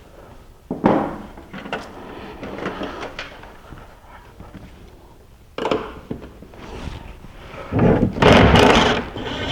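Tool and metal-part handling while a 10 mm bolt is undone on a UTV's roll cage: a sharp knock about a second in, another about five and a half seconds in, and a louder stretch of clattering near the end.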